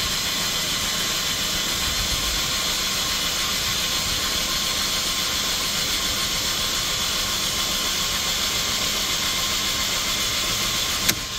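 Mercedes-Benz M271 four-cylinder engine being cranked over by its starter motor with the fuel pump fuse pulled, so it turns without firing: a steady whirring hiss that stops with a click near the end.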